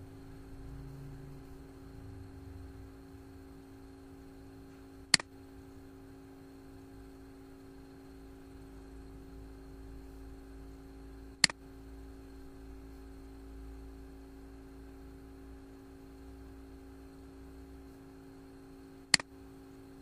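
Three sharp computer mouse clicks, several seconds apart, over a steady electrical hum and faint room noise.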